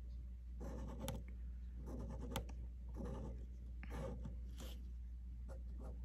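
Fine-tip ink pen scratching across a paper label in short, separate strokes, about one every second.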